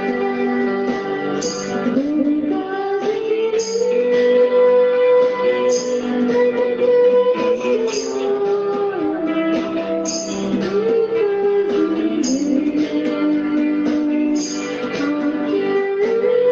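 Instrumental music led by a guitar melody of held and gliding notes, with a short high percussive tap about every two seconds.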